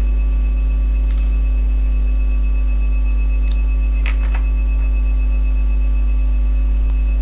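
Loud, steady electrical hum of mains type, with its overtones and a thin steady high whine above it. A couple of faint clicks come through, about a second in and again about four seconds in.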